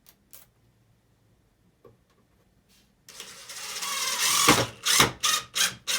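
A few light clicks of the Phillips bit being fitted into a drill, then about three seconds in the drill runs, building up over a second or so, followed by several short bursts of the trigger.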